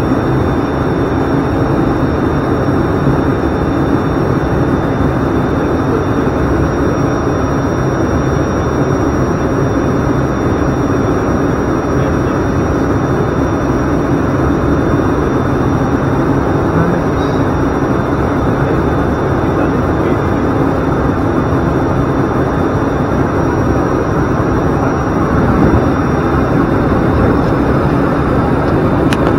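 Steady drone of an ATR 42-500's twin turboprop engines and propellers, heard from inside the cockpit, with a constant rush of noise and faint high steady whines.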